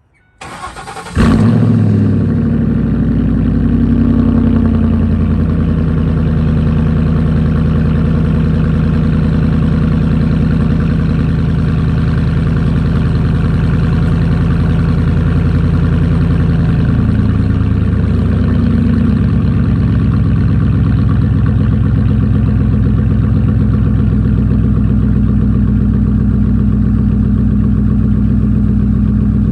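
Ford 5.4 Triton V8 in a 2006 F-150, straight-piped with the catalytic converters kept and no X-pipe, cranking briefly and firing on a cold start, then running at a steady fast idle. About 17 seconds in the idle settles a little lower.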